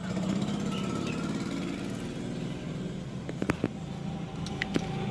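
Bajaj Pulsar AS150 motorcycle's single-cylinder engine running steadily, an engine with a reported noise problem. A few short sharp clicks sound over the running engine a little past the middle.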